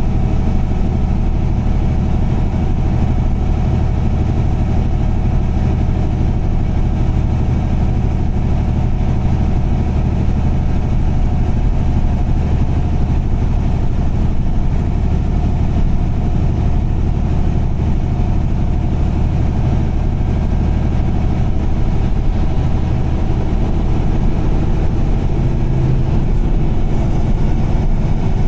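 A car driving along steadily, its engine and tyres making a constant low drone, with a slight shift in the hum near the end.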